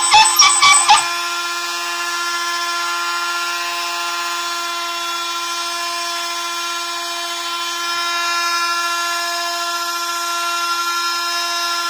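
CNC machine's spindle motor running with a steady whine. Louder, uneven sounds come first, then stop about a second in.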